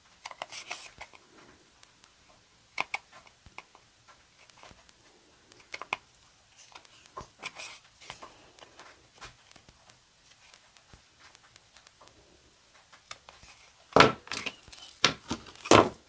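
Small scissors snipping through thick card stock, trimming round corners with a string of short separate snips. Near the end, a few louder knocks and clatter on the wooden desk.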